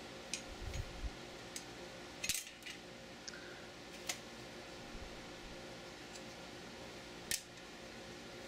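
Scattered light metal clicks and clinks of steel parts being handled on an AR-15 barrel and gas block, over a steady low hum. The sharpest clinks come a little after two seconds in and again near the end.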